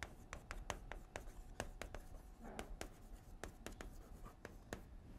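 Faint, irregular taps and scratches of someone writing by hand, a quick series of small clicks with no words.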